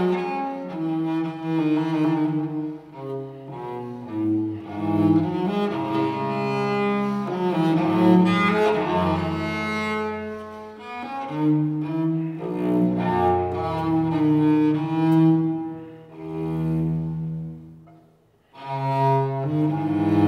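Instrumental background music with slow, sustained low notes changing every second or so. It fades almost away about eighteen seconds in, then comes back.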